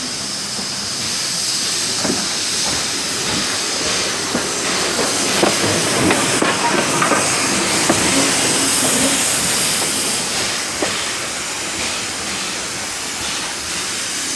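LBSC Terrier 0-6-0 tank locomotive W11 Newport moving slowly past at close range, with steam hissing steadily. A cluster of clanks and knocks from its running gear comes about halfway through, as it goes by nearest.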